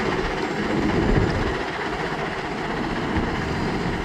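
Heavy machinery running steadily, with a louder clank about a second in.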